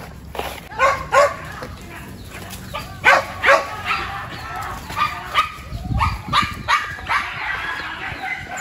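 Hunting dogs barking and yipping in an excited, irregular run of short, sharp calls that starts about a second in.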